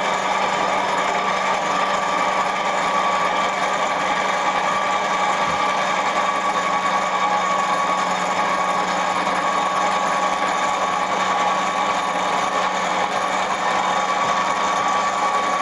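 Milling machine running at a steady speed with a constant whine, its cutter working a brass workpiece.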